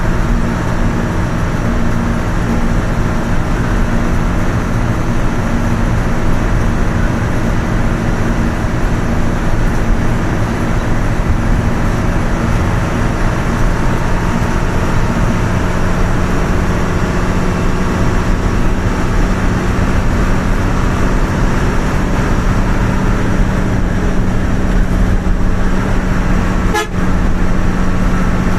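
Steady engine drone and road noise heard from inside a vehicle cruising at highway speed, with a constant low hum that grows stronger partway through; a brief click near the end.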